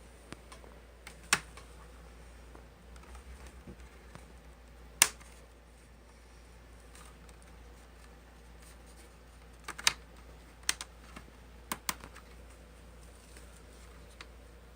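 Plastic snap clips of a laptop's screen bezel clicking as the bezel is pried loose by hand: a handful of sharp, irregular clicks, with a quick pair just before the middle and two more pairs soon after.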